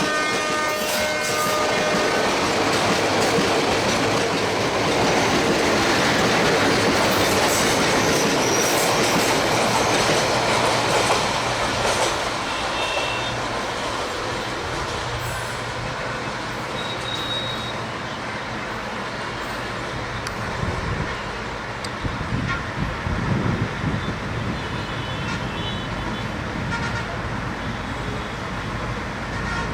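Diesel-hauled express passenger train passing, its horn sounding and cutting off about two seconds in. The rushing noise of the coaches on the track is loudest in the first ten seconds or so, then continues at a lower level.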